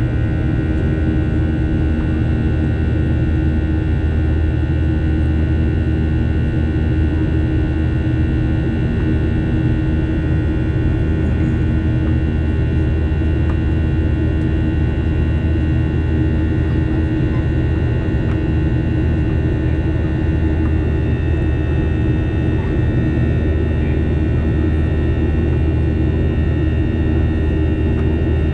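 Boeing 737-800's CFM56-7B jet engines heard from inside the cabin: a steady, loud drone with several steady whining tones above it.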